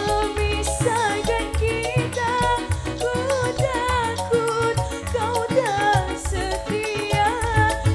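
Live dangdut band music: a woman singing a wavering melody over a busy hand-drum pattern, electric guitars and keyboard.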